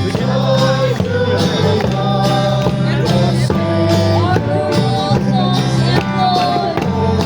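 A song playing: a singing voice over sustained bass notes and a steady beat.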